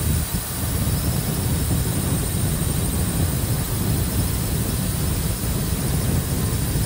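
Wind rushing and buffeting over a 360 camera's microphone held outside a car at highway speed, a heavy, fluttering rumble over steady road noise.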